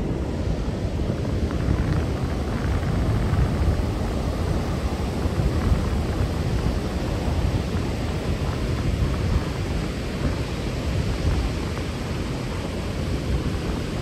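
Wind buffeting the microphone as a steady low rumble, over the constant wash of ocean surf breaking on the beach.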